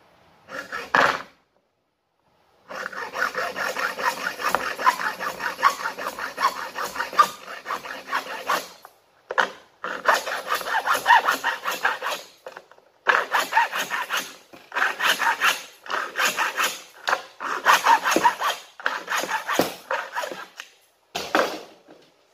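Hand saw cutting through PVC pipe or fitting: quick rasping back-and-forth strokes in long runs, broken by a few short pauses.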